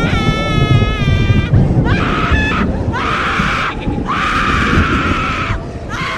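Horror sound effect of screaming: a shrill, wavering high cry, then three raspy screams, over a low rumbling drone.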